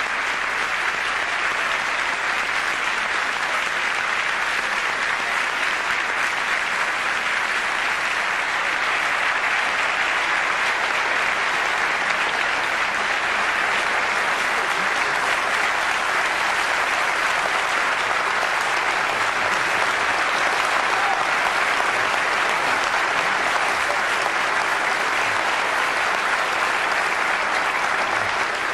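Large audience applauding steadily and without a break, a long welcoming ovation.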